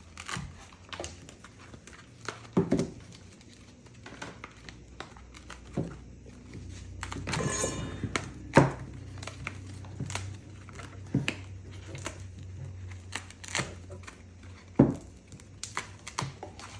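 Plastic packaging crinkling, with scattered light knocks and thunks as the parts of a pet water fountain are unpacked and handled. A longer rustle comes about seven seconds in, over a faint steady low hum.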